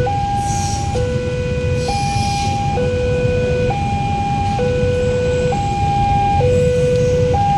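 Railway level crossing's new electronic warning siren sounding a two-tone hi-lo alarm, a higher and a lower tone swapping about once a second. It sounds over a steady low rumble.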